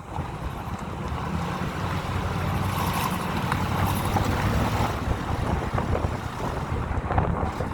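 2001 Ford F-150 pickup truck running on the move, its engine and road noise building over the first two seconds and then holding steady with a low hum.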